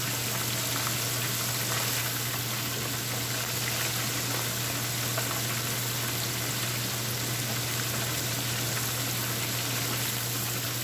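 Thin chicken breast pieces frying in hot oil with a steady, even sizzle. The pieces are already floating, a sign that they are cooked through and are only crisping.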